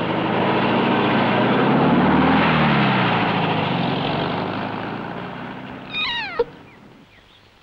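A vehicle passes by, its noise swelling and then fading away over several seconds. Near the end, a long-haired cat gives one short meow that falls in pitch.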